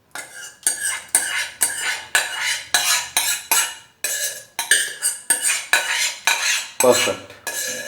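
Metal spoon scraping and clinking against a steel pot in quick repeated strokes, about two to three a second, with a short break about halfway: cooked dal being stirred and scooped out.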